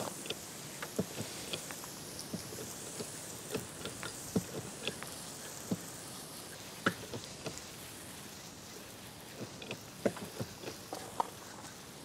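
Backpack sprayer wand spraying green wood end sealer onto the ends of stacked boards: a faint steady hiss with scattered light taps and clicks at irregular intervals.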